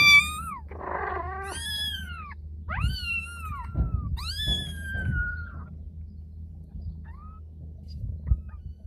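Newborn kitten mewing: four high-pitched cries in the first five seconds or so, each rising then falling in pitch. Rustling and light bumps of the kitten being handled run underneath, and the cries stop after about five and a half seconds.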